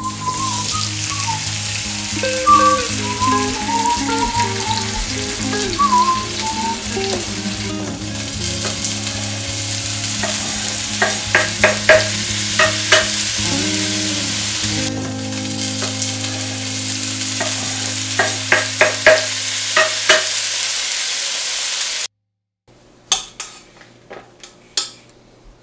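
Sauce and chopped vegetables sizzling in a hot frying pan as they are added and stirred, with two runs of sharp clicks partway through. The sizzle cuts off suddenly a few seconds before the end, and a few lighter knocks follow.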